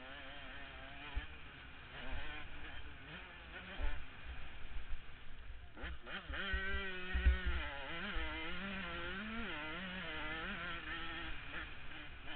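A KTM 105 supermini's two-stroke engine revving up and down under racing, heard from a camera mounted on board, with low thumps and wind rumble. The pitch climbs sharply about halfway through, then wavers up and down.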